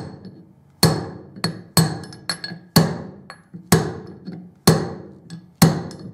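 Hammer striking a steel drift to tap a worn, interference-fit wheel bearing out of a motorcycle wheel hub. The blows come about once a second, each sharp and briefly ringing, with a few lighter taps in between.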